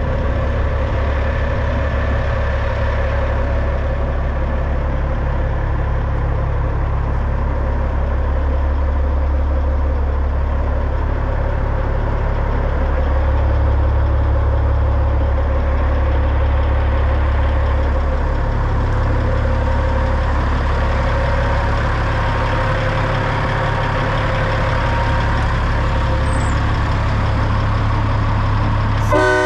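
Peterbilt day cab truck tractor's diesel engine idling steadily. A horn sounds briefly at the very end.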